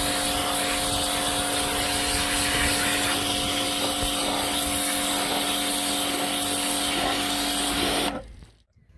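Kärcher K5 electric pressure washer running: a steady motor-and-pump hum with a few held tones under the loud hiss of the water jet spraying a plastic garden seat. It cuts off suddenly near the end.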